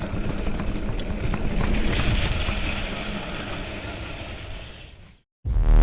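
Wind rushing over the microphone with the rumble of riding a bicycle, with a few light clicks, fading out about five seconds in. Loud electronic music with a heavy beat starts just before the end.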